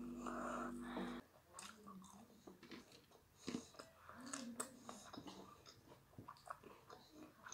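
Faint chewing and biting of a crispy fried chicken leg, with small crunches and mouth sounds. A steady hum stops about a second in.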